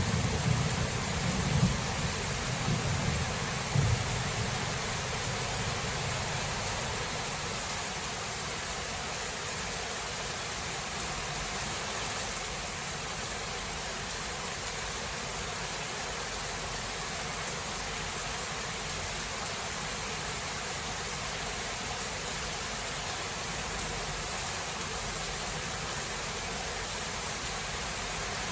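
Steady rain hiss of a thunderstorm, with the low rumble of thunder dying away over the first few seconds and one brief louder rumble about four seconds in.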